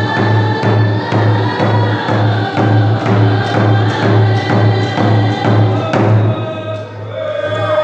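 A group singing together over a steady drum beat of about two beats a second. The drumming stops about six seconds in, and a voice carries on alone before the singing picks up again.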